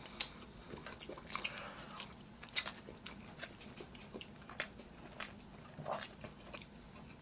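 Close-miked chewing of a mouthful of rice and spicy stir-fried pork, with wet mouth clicks and a few sharp clicks; the loudest comes about a quarter second in.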